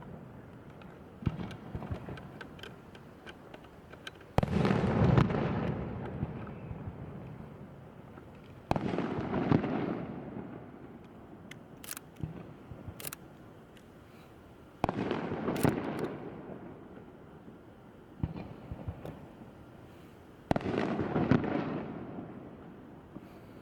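Aerial firework shells bursting: four loud booms a few seconds apart, each rumbling and echoing away over several seconds, with smaller bangs and sharp crackles in between.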